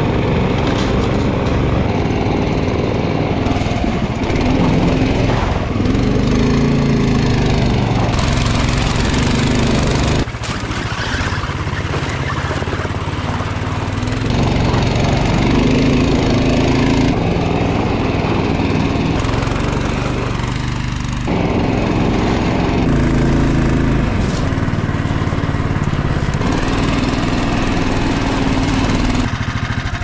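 Snow Dog motorized snow tow's small engine running under load as it pulls along a snowy trail, its pitch rising and falling with the throttle, with a few abrupt changes in pitch and level.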